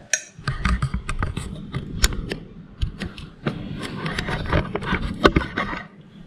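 Wooden pestle knocking and scraping in a clay mortar, with repeated irregular dull thuds, as green beans and chilies are bruised in the sauce.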